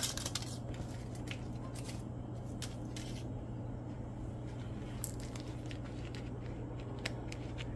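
Scattered light clicks and taps of ingredients and utensils being handled at a pot, over a steady low hum.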